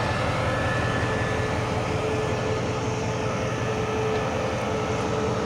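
CRRC Qishuyan (QSY) diesel-electric locomotive idling up close: a steady low diesel drone with a steady whine over it.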